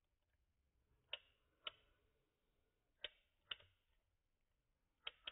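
Wind-up pinwheel fan pen being wound by hand: five sharp, ringing plastic clicks from its winding mechanism, mostly in pairs about half a second apart.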